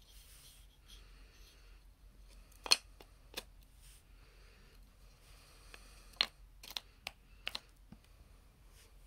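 Cardboard jigsaw puzzle pieces clicking and tapping as they are handled and pressed into a tray puzzle: several sharp clicks, the loudest about two and a half seconds in and a cluster between six and eight seconds, with soft rustling between.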